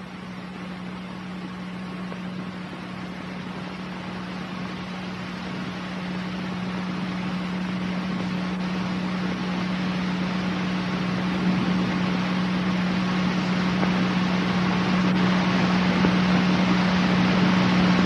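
A steady hiss-like rushing noise over a low, steady hum, growing gradually louder.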